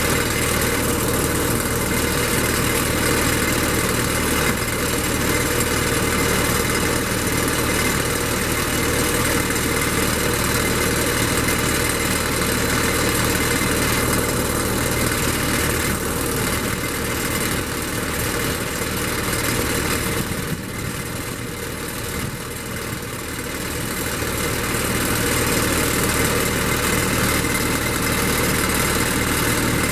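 A heavy logging machine's engine idling steadily, with a brief drop in loudness about two-thirds of the way through.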